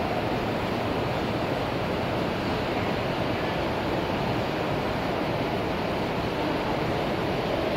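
Model freight cars rolling past on the track: a steady, even noise of metal wheels running on rail, with no pauses.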